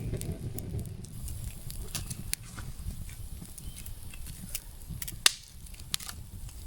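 Campfire crackling, with irregular sharp pops and snaps, the loudest about five and six seconds in, over a low steady rumble.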